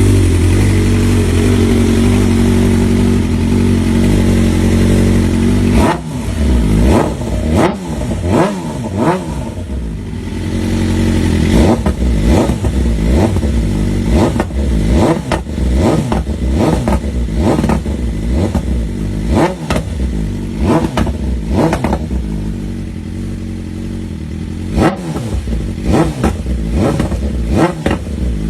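BMW M1000RR's inline-four engine through an Akrapovič full exhaust system, running steadily, then revved in quick throttle blips from about six seconds in. Each rev rises and falls, with sharp pops and crackles from the exhaust as the revs drop.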